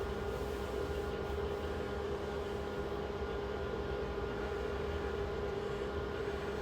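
Steady background hum and hiss of the room, with a low drone and a couple of faint steady tones. Nothing else stands out.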